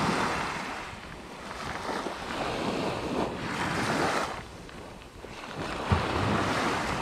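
Sea waves breaking and washing up the beach in three rising and falling surges, with wind buffeting the microphone. There is a short thump about six seconds in.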